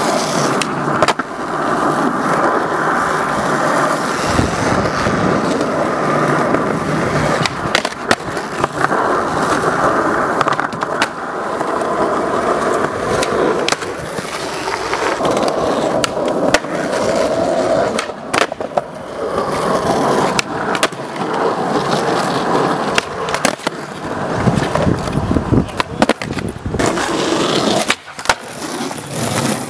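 Skateboard wheels rolling over pavement, with many sharp clacks of the board popping and landing scattered throughout.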